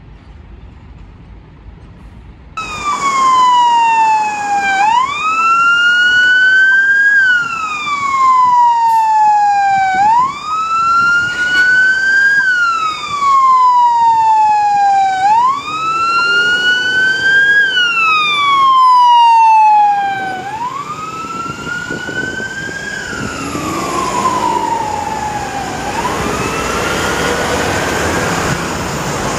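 Scania fire truck siren on a slow wail that starts suddenly about two and a half seconds in: each cycle falls in pitch, then sweeps quickly back up, repeating about every five seconds. After about twenty seconds the siren grows fainter and engine and road noise take over as the truck moves away.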